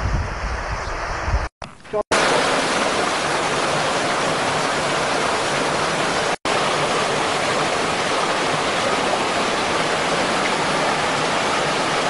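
Small mountain waterfall splashing down over rocks in a steady rush of water, with wind buffeting the microphone in the first second and a half. The sound cuts out briefly twice, near two seconds in and again about six seconds in.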